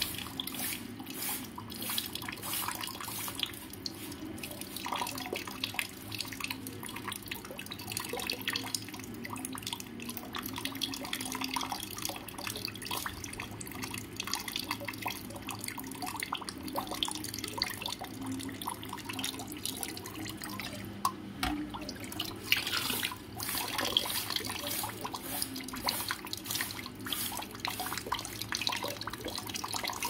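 Water trickling and dripping steadily, an even splashy patter of many small irregular drops.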